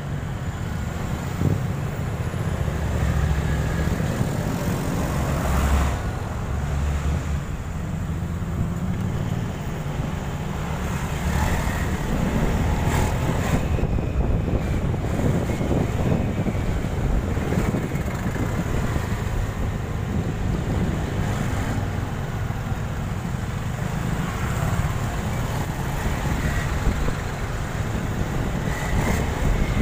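Wind buffeting the phone's microphone on a moving motorcycle, over a low rumble of the motorcycle and road traffic.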